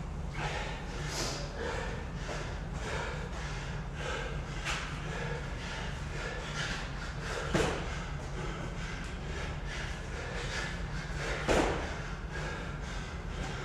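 Hard, repeated breathing during a workout over a steady low hum, with two louder thuds about four seconds apart, the first about halfway through and the second near the end.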